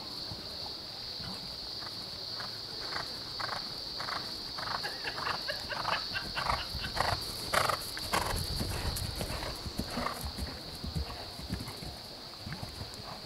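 A horse cantering on turf, its hoofbeats falling in an uneven rolling rhythm. They grow louder toward the middle and fade near the end. A steady high-pitched hiss runs underneath.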